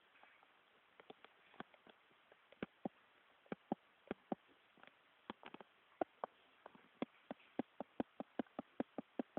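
A young puppy at play, making irregular sharp clicks and taps. They are sparse at first, then come several a second through the second half.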